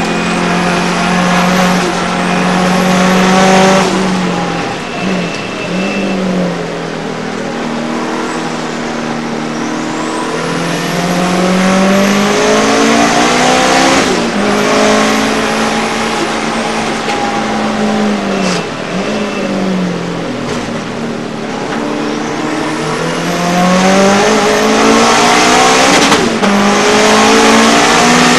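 Racing car's engine heard from inside its stripped cockpit at full race pace, the revs climbing through the gears and dropping sharply at each shift and lift for the corners. Road and wind noise run underneath.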